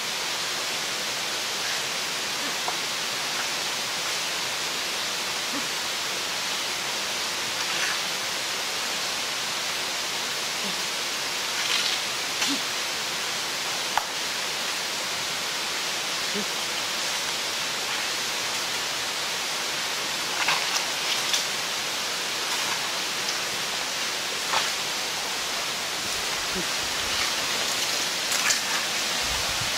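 Steady rushing hiss of forest ambience, broken by a few short snaps and rustles as large animals move through leaf litter and twigs close by.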